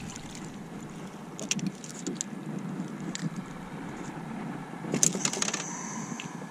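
A small yellow perch being reeled in and swung into the boat: water lapping at the hull with scattered light tackle clicks, then a quick burst of rattling clicks about five seconds in as the fish comes out of the water.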